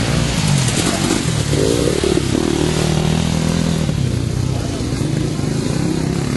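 Enduro dirt bikes riding past, engines revving: the engine note climbs about a second and a half in, then holds steady as the bikes carry on across the track.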